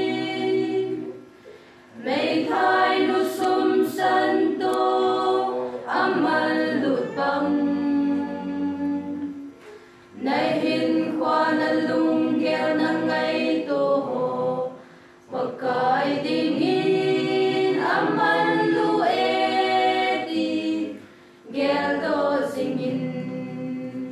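Mixed choir of young women and men singing a cappella, in long phrases with brief pauses between them.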